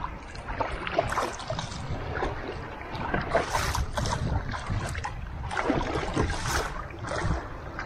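Paddle strokes splashing and water lapping against the plastic hull of a Feel Free Nomad sit-on-top kayak, in irregular splashes, over a steady low wind rumble on the microphone.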